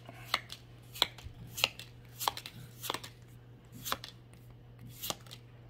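Pokémon trading cards being flipped one at a time from the front to the back of a handheld stack, each card giving a short snap, seven in all at roughly one every half second to second. A faint steady low hum runs underneath.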